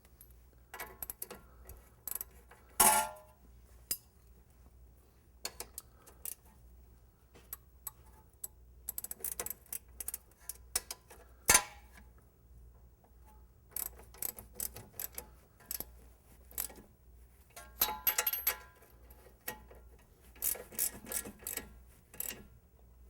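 Hand ratchet clicking in short runs while the bolts at the bottom of a new strut are tightened, with a few louder metallic knocks from the tools.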